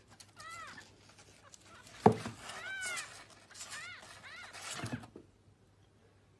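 Kitten mewing, a few short high mews that rise and fall in pitch, with a sharp knock about two seconds in and a softer one near five seconds as it scrambles over the cardboard box.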